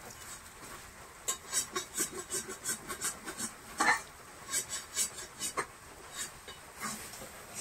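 Boiled raw banana and potatoes being mashed by hand in a bowl: a quick, irregular run of short sounds, the loudest about four seconds in.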